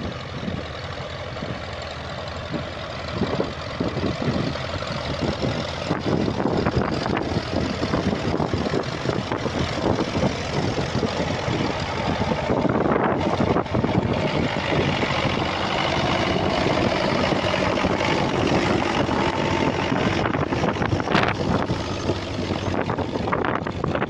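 Small vintage tractor engines working under load as they pull ploughs through heavy, sticky soil, with several tractors passing close by one after another.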